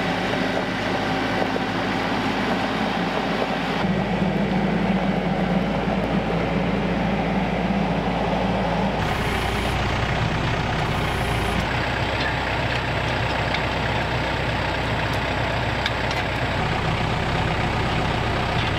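TYM tractor's diesel engine running steadily, its sound changing abruptly about four and nine seconds in.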